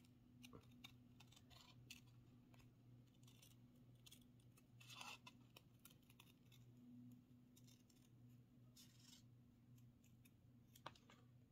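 Faint, irregular snips of sharp scissors cutting fabric applique pieces backed with fusible web, over a steady low hum.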